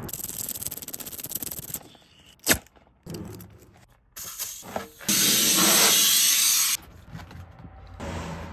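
Tyre-repair tool noises: scraping and rubbing, a sharp knock about two and a half seconds in, then a loud steady hiss of about a second and a half.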